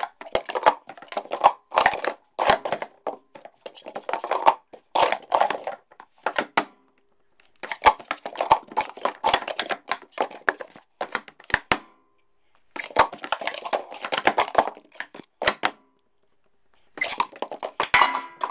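Lime-green plastic Speed Stacks sport-stacking cups clattering in rapid runs of clicks as they are stacked up and brought down, with brief pauses of about a second between runs.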